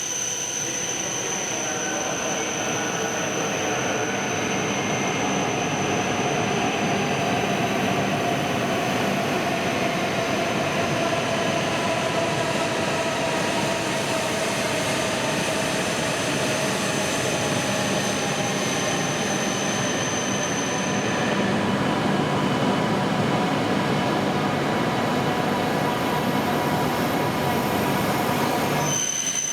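Tohoku Shinkansen E2 series train running at the station platform: a steady rumble with faint, slowly gliding whining tones. A thin high steady tone sits over it and stops about two-thirds of the way through.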